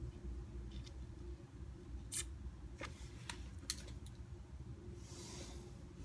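A few sharp computer-mouse clicks about two to four seconds in, over a low steady hum, with a short soft hiss near the end.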